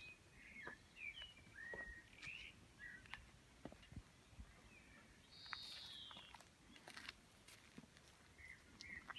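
Faint birdsong: short chirps scattered throughout and one longer falling call a little past the middle, with a few light ticks.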